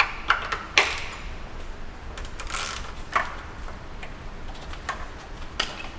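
Scattered sharp clicks and light metallic knocks, about eight at uneven spacing, of hand tools and parts being handled on an engine being stripped down.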